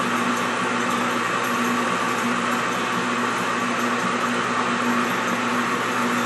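Small benchtop lathe running steadily, with a green abrasive pad rubbing against a painted 3D-printed ear cap as it spins, lightly buffing the finish. A low motor hum comes and goes under an even whirring hiss.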